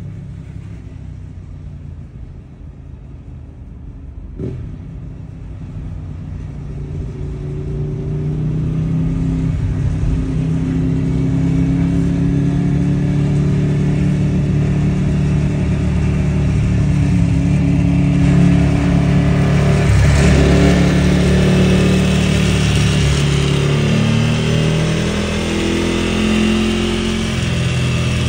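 Ducati 1098R's 90-degree V-twin through a Termignoni 70 mm racing full exhaust, riding along with the throttle opening and closing so its pitch rises and falls. It starts fairly quiet and grows much louder over the first several seconds, with a short sharp click about four and a half seconds in.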